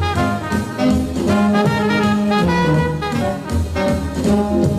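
Background music: a jazz or swing tune with brass instruments.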